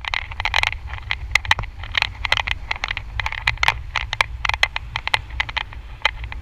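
Wind buffeting an action camera's microphone high on a parasail harness, a steady low rumble. Over it come rapid, irregular clicks and rattles of the camera and its mount in the airflow.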